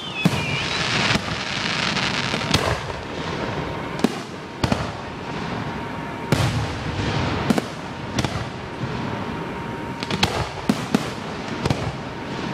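Aerial firework shells bursting: about a dozen sharp booms at uneven intervals over steady crackling, with a falling whistle trailing off right at the start.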